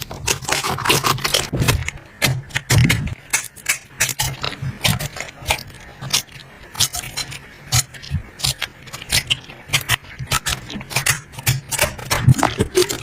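Slime being squished and worked by hand, giving fast irregular sticky clicks and crackles over a faint low hum.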